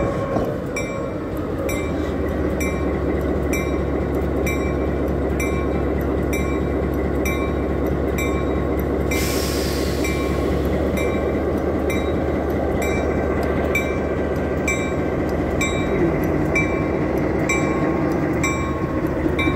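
Diesel switcher locomotive engine running steadily under load as it moves slowly, its bell ringing about once every three-quarters of a second. A short hiss of air comes about nine seconds in.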